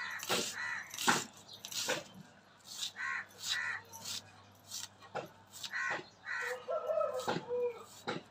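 Crisp cuts, about one or two a second, as a red onion is sliced against an upright fixed blade set in a wooden block. A few short animal calls sound in the background.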